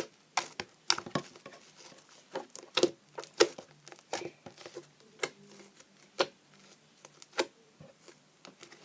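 Thick homemade slime being squeezed and stretched by hand, giving irregular sharp clicks and pops, many in the first few seconds and fewer after.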